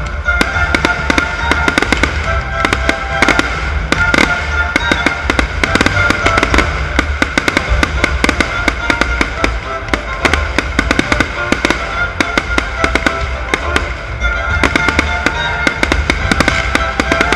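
Fireworks bursting and crackling in quick succession, many sharp cracks a second with a continuous low rumble, over music playing with sustained tones.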